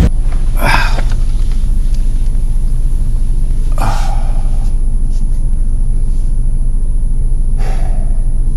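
Steady, loud low rumble in the aftermath of an explosion, with a thin high ringing tone above it. Three short, breathy exhales from a dazed man come at intervals of about three seconds.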